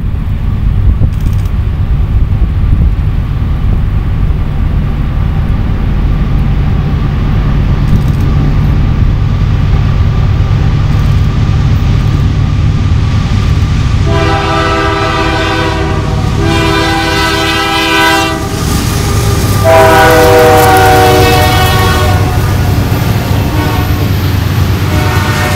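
Diesel freight train approaching with a low rumble. Past the halfway point the lead Union Pacific locomotive's air horn sounds three long blasts, the last dropping in pitch as the locomotive passes. Tank cars then roll by near the end.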